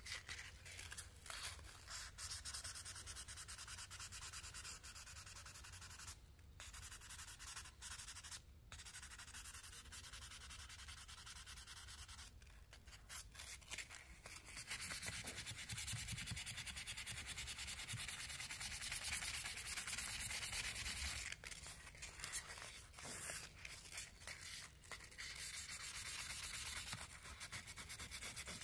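Fine 600-grit sandpaper rubbed over the steel blade of an old Randall Made knife: a steady, faint hiss that pauses briefly a few times. The fine grit is taking off surface rust without removing metal.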